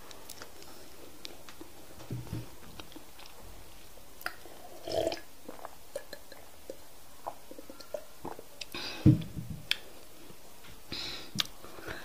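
Close-miked mouth sounds of eating: chewing, wet clicks and lip smacks as fingers are licked, and swallowing while drinking water from a glass. A single louder thump comes about nine seconds in.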